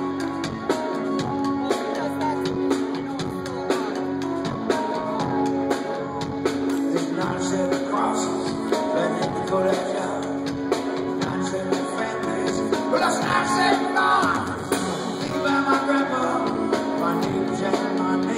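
Live rock band playing electric guitars and drums, with a man singing lead, heard from the audience through a phone's microphone.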